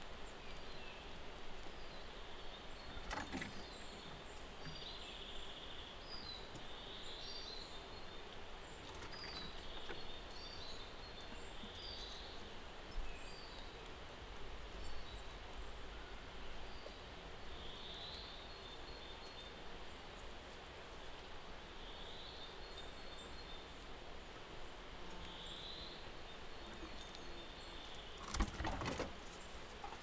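Small songbirds calling with short, high chirps every second or two over a steady outdoor background rush. There are a couple of sharp knocks: one about three seconds in and a louder cluster near the end.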